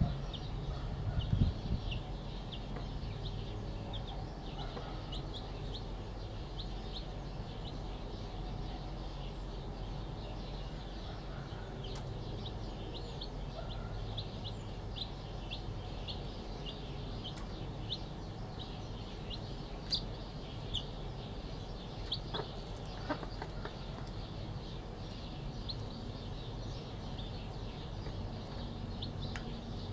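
Newly hatched chicks peeping: a continual run of short, high cheeps, with a few lower clucks from the broody hen sitting over them.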